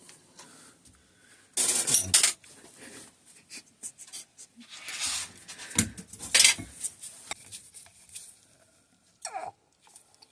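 Workbench handling of a suspension fork's metal parts and tools: scattered clicks and knocks with two longer stretches of scraping and rustling, as the fork's top cap and damper assembly are worked out. Two short squeaks falling in pitch near the end.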